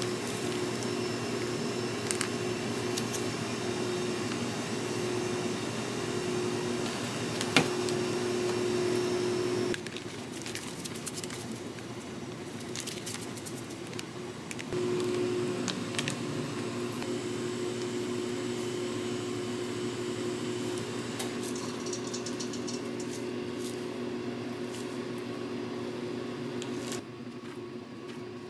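Steady machine hum with light clicks and taps over it. The hum drops about ten seconds in, comes back about five seconds later, and drops again near the end, with one sharp knock about seven and a half seconds in.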